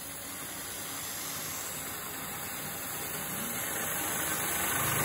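Milling machine spindle running a carbide end mill through the finish pass of a keyway slot in 1018 steel, under a steady hiss from the coolant mist nozzle. The sound slowly grows louder, and a low hum comes in near the end.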